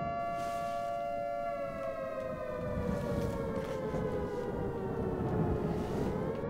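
Civil defense warning siren wailing: a held tone that slowly falls in pitch and starts to rise again near the end, over a low rumble.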